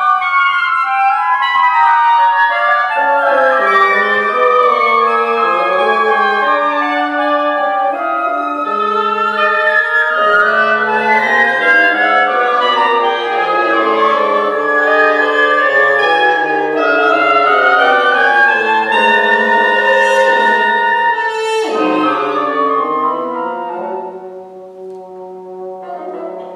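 Woodwind quintet (flute, oboe, clarinet, bassoon and French horn) playing contemporary classical music, many lines moving at once. About two-thirds through, the pitches slide up and down, one dropping steeply, and the music then falls quieter over a low held note.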